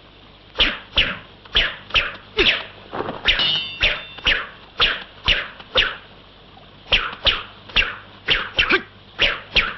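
Rapid swishing whooshes of a kung fu solo form, the dubbed film effects of fists, sleeves and kicks cutting the air. They come about two a second, each falling in pitch, with a pause of about a second past the middle.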